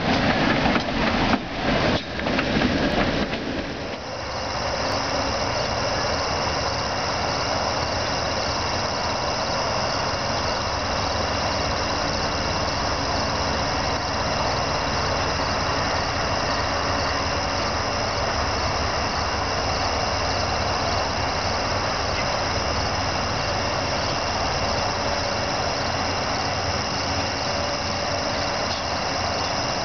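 A PCC streetcar rolls past close by for about the first four seconds, rattling and clicking over the rails. After that comes a steady high-pitched drone of several held tones over a hiss, unchanging in level, with a faint lower tone joining near the end.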